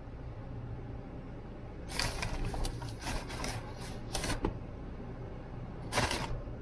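An ostrich pecking feed pellets inside a car: bursts of quick clacks and rustles about two seconds in, again a little after four seconds and near the end, over the steady low hum of the idling car.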